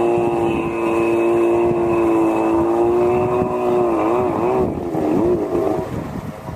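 Jet ski engine running at steady revs, its pitch wavering up and down about four seconds in as the throttle changes, then dropping away near the end.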